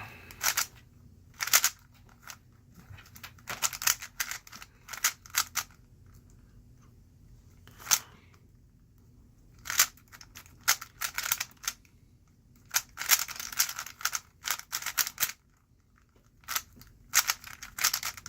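A 3x3 speed cube being turned rapidly by hand, its plastic layers clicking and clacking in quick runs broken by short pauses.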